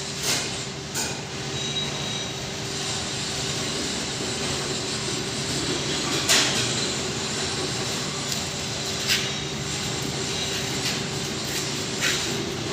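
Hammer-mill maize grinder running steadily, a continuous mechanical hum broken by a few sharp clacks, the loudest about halfway through.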